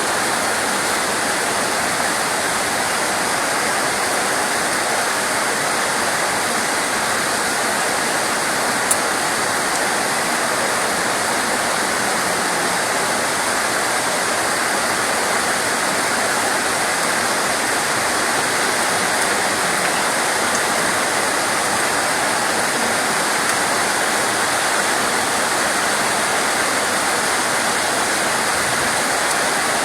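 Steady heavy rain: an even rushing hiss with no distinct drops or changes. There is a single faint tick about nine seconds in.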